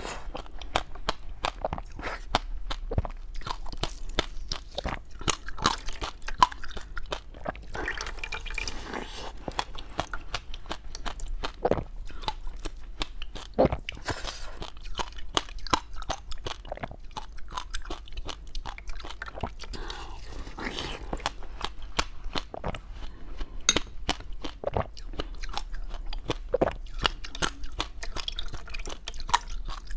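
Close-up crunching and chewing of dry, powdery freezer-frost ice: a dense, irregular run of crisp crunches that goes on without pause.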